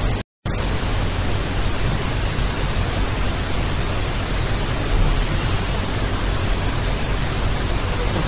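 Steady hiss of static with a low hum underneath, starting about half a second in after the sound drops out completely for a moment.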